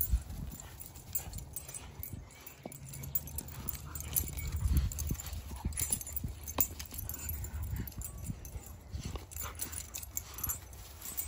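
A Siberian husky and a yellow Labrador puppy tugging a rope toy between them: dog play noises with irregular scuffs and knocks of paws and rope, over a low rumble.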